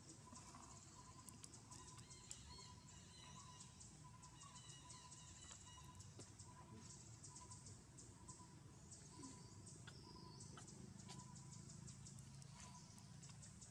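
Near silence: faint outdoor ambience with soft, high-pitched ticking and a few faint chirps.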